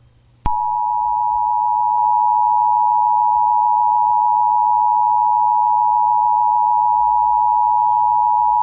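Emergency Alert System attention signal: a loud, steady two-tone alarm of two close pitches just under 1 kHz (the 853 and 960 Hz EAS pair), starting with a click about half a second in.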